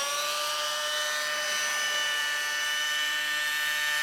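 Radio-controlled helicopter in flight: a high, steady whine from its motor and rotors with a ladder of overtones, the pitch holding nearly level.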